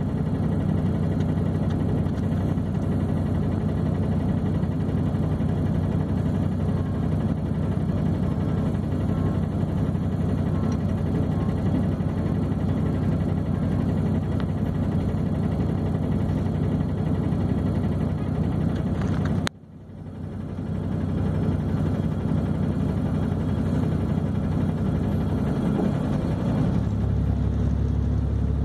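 Vehicle engine idling, heard from inside the cabin as a steady low hum. About two-thirds of the way through the sound cuts out abruptly and fades back in over a second or two, and near the end the low hum deepens and grows stronger.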